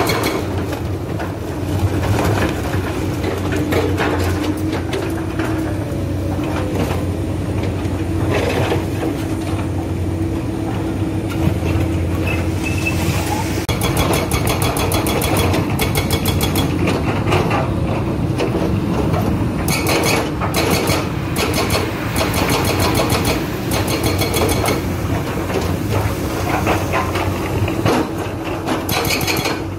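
Excavator's diesel engine running steadily, with a hydraulic breaker hammer chattering in rapid, even strokes in several spells, mostly in the second half.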